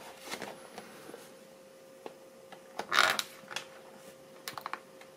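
Small plastic clicks and taps as a plastic action figure and its snap-together base tiles are handled and set on a table, with a louder short scrape about three seconds in. A faint steady hum runs underneath.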